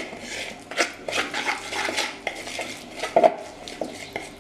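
A utensil stirring and scraping in a plastic mixing bowl as a wet spice marinade is mixed, making irregular scrapes and small clicks.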